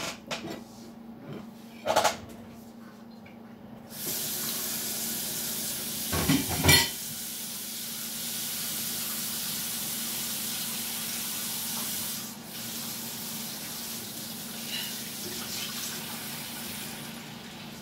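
A knock, then a kitchen tap starts running into the sink about four seconds in. A dish clatters loudly a couple of seconds later, and the flow eases a little past the middle and keeps running.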